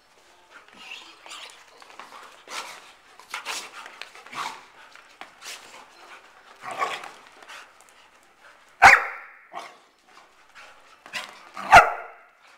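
Dogs play-fighting: a run of short, scattered dog vocalisations and scuffles, then two sharp, loud barks about three seconds apart near the end.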